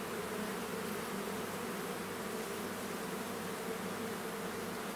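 Honeybees on an open hive frame buzzing, a steady hum of several pitches with no break.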